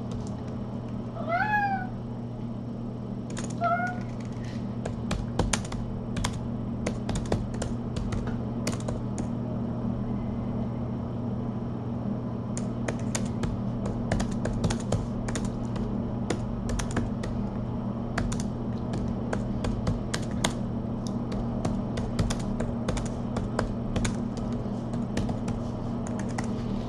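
A domestic cat meows once, a rising-and-falling call, and then gives a shorter meow a couple of seconds later. After that comes a long run of irregular light clicks, like keyboard typing, over a steady low electrical hum.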